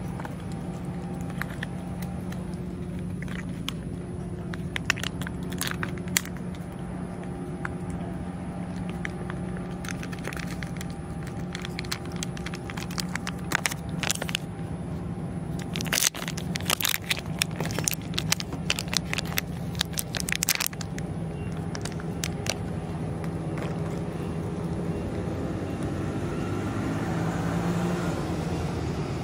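A cat eating from a stainless steel dish: wet chewing and crunching with sharp clicks of teeth and tongue against the metal, coming thickest and loudest in the middle. A steady low hum runs underneath.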